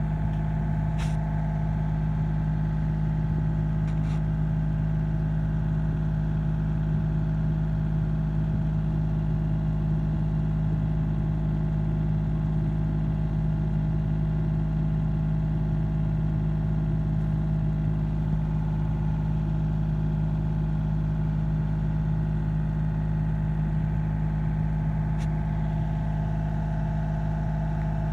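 An engine idling steadily, a constant low hum with a few faint clicks over it.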